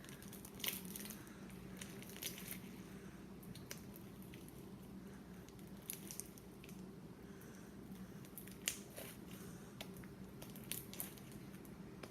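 Hands kneading and stretching sticky glue-and-borax slime: faint, irregular squishes and crackling pops.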